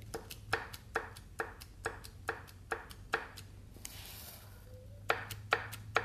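Number 3 connecting rod of a small-block Chevy 350 being rocked by hand on the crankshaft, knocking a little over twice a second, with a pause around the middle before the knocks resume. The free play comes from its destroyed, spun rod bearing, the source of the engine's rod knock.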